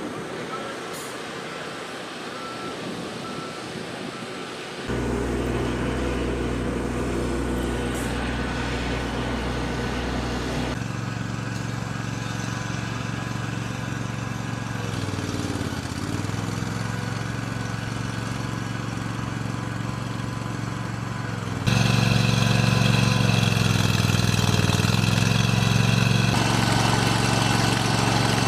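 Heavy diesel engines of a John Deere excavator and articulated dump trucks running at a loading site. The engine note dips briefly in pitch about midway and recovers, as under load. The sound changes abruptly three times, each time to a different engine sound, the last and loudest near the end.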